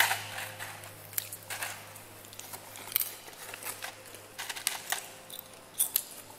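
Clear plastic snack container being set down and handled on a tile floor: a scattering of sharp plastic clicks, taps and crinkles, over a steady low hum.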